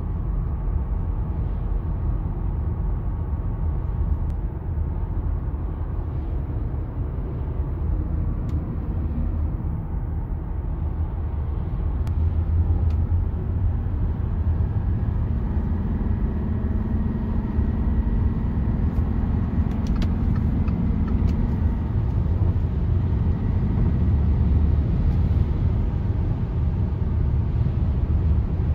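Cabin noise of an Audi A6 2.7 TDI V6 diesel with multitronic CVT accelerating at motorway speed: a steady low rumble of engine and road, with the engine held at low revs by the CVT. It grows louder from about halfway through as the speed climbs.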